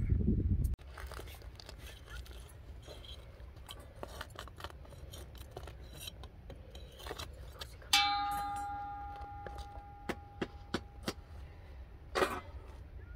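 Light clicks, scrapes and knocks as flatbreads are pulled off the inside wall of a clay tandoor. About eight seconds in, a steel dish is struck once and rings out, fading over about two seconds. A loud low rumble cuts off under a second in.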